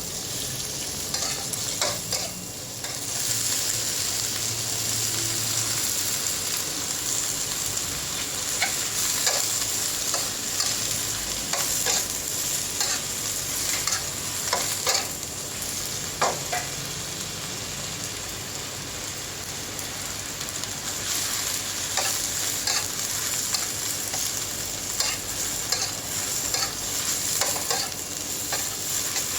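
Food frying on a hot pan with a steady sizzle, and a utensil repeatedly clicking and scraping against the pan as the food is stirred and turned.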